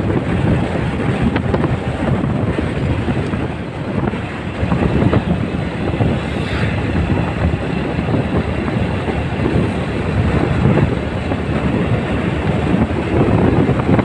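Motorcycle riding at road speed: a steady rush of wind buffeting the microphone over the bike's running engine.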